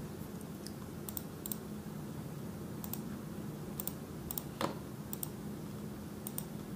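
Light, sharp clicks from working a computer's mouse and keys while switching charts, about eight of them at irregular moments and some in quick pairs, the strongest about four and a half seconds in. A steady low hum runs underneath.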